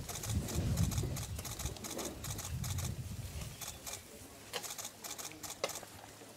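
Low rumbling and shuffling around elephant calves being bottle-fed, strongest in the first few seconds and then fading. Scattered sharp clicks run throughout.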